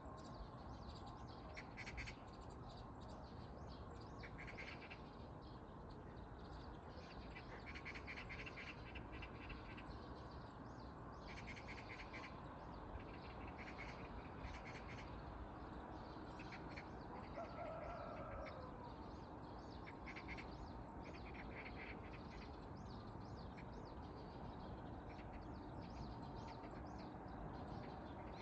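Birds chirping in short, repeated bursts of high twitter over a steady rushing background. A brief lower call comes about seventeen seconds in.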